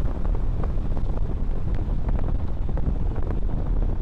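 Wind buffeting the microphone: a loud, steady, low rumble with small crackles.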